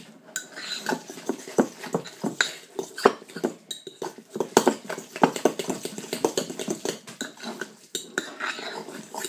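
A metal utensil clinking and scraping against a ceramic bowl in quick, irregular taps, stirring tuna and mayonnaise together.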